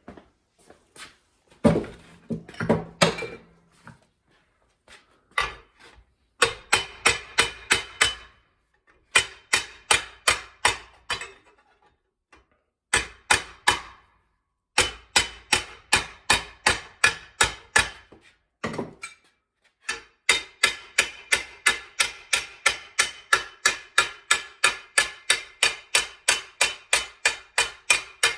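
Hammer striking sheet steel in quick runs of ringing blows, about four a second, with short pauses between runs: hand-forming a rust-repair patch piece.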